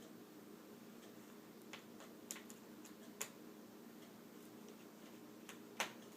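A few faint, light clicks at irregular intervals, the loudest near the end, from a small Phillips screwdriver and tiny screws while the laptop screen's mounting screws are being taken out, over a steady low hum.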